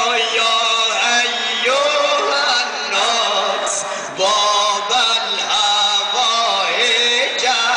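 A man's solo voice chanting a religious mourning lament (noha), with long held notes that slide up and down.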